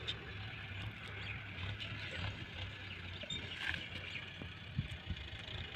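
Rural outdoor ambience: small birds chirping over a steady low hum, with a few faint clicks and rustles.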